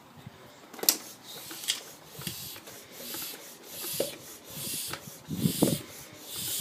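Bicycle hand pump being worked to put a little air into a punctured inner tube: repeated hissing pump strokes, roughly one a second, with a few light knocks from the pump.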